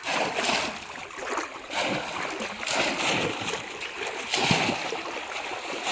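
Shallow muddy water splashing again and again as bamboo polo fish traps are plunged down into it. There are several loud splashes about a second apart.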